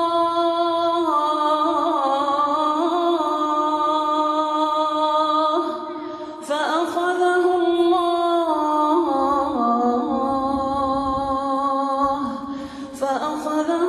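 Quran recitation (murottal): one voice chanting in long, drawn-out melodic phrases, with short breaks about halfway through and near the end.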